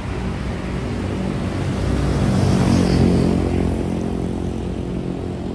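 Street traffic: a motor vehicle's engine passing close by, growing louder to a peak about three seconds in and then fading.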